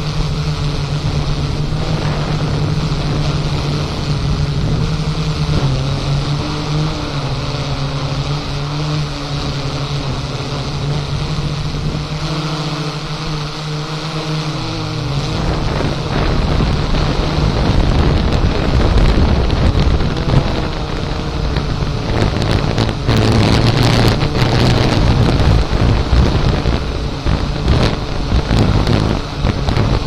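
Strong wind buffeting the microphone. In the first half a quadcopter drone's propellers hum steadily at a slightly wavering pitch; from about halfway a heavy low wind rumble takes over, with harder gusts later on.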